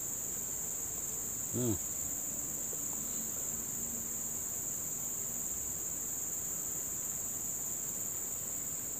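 Insects, crickets by their sound, chirring in a steady high-pitched chorus over the swamp. A person gives a short murmur about a second and a half in.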